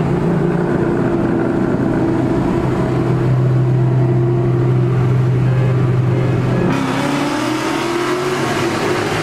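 Bolt-on, E85-fuelled 5.0 V8 under hard acceleration, heard from inside the cabin. The engine holds a steady note, then about seven seconds in the sound changes and the note starts climbing in pitch again.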